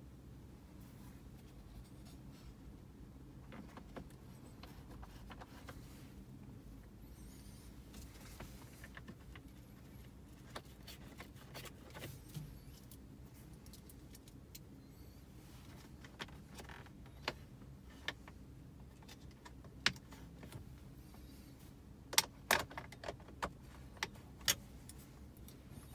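Scattered small metallic clicks and taps of screws being fitted and driven back into a car's dashboard display bracket by hand. A cluster of sharper clicks comes near the end, over a faint steady low hum.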